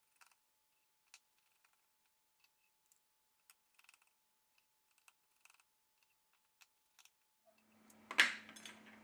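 Faint, scattered small clicks of a precision screwdriver working the tiny screws out of a smartphone's top frame, then a louder short scraping clatter about eight seconds in as the phone parts are handled.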